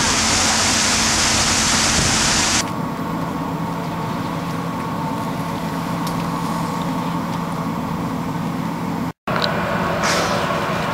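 Boat engine humming steadily under loud wind and water rushing; the rushing drops away abruptly about two and a half seconds in, leaving the engine hum, and the sound cuts out for an instant near the end.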